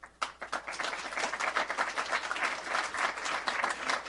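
Audience applauding, the clapping starting just after the beginning and swelling within the first second into steady applause.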